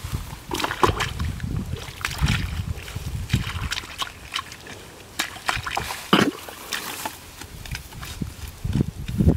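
Sloshing and splashing in shallow muddy water, with irregular splashes every second or so.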